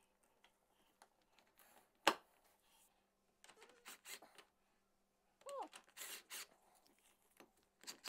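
Quiet handling noise at a wooden balcony rail joint as a drill with a hex bit is fitted to the rail connector: a single sharp click about two seconds in, then short bursts of scraping and rustling.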